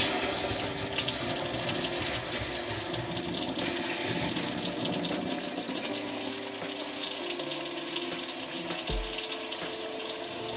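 Sink faucet running steadily at full flow, with the water just turned back on to test a freshly repaired copper supply line.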